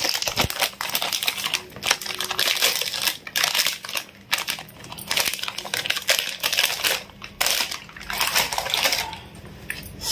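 Plastic packet crinkling and rustling as lumps of jaggery are squeezed and shaken out of it into a plastic tub, with irregular crackles and soft knocks of the lumps landing; it dies down about nine seconds in.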